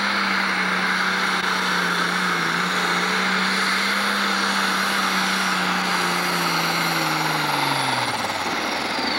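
Pro Stock pulling tractor's turbocharged diesel engine running at full power under load, pulling the sled. Its pitch sags slowly as the pull goes on, then drops sharply near the end.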